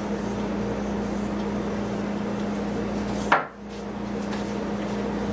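A steady low hum throughout, with one sharp knock about three seconds in as an unboxed accessory is handled and set down.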